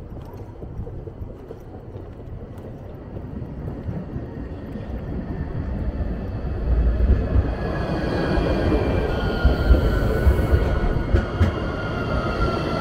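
Nottingham Express Transit tram, a Bombardier Incentro, passing close by and pulling into the stop. A rumble builds from about halfway in, and an electric whine sets in that slowly drops in pitch as the tram slows.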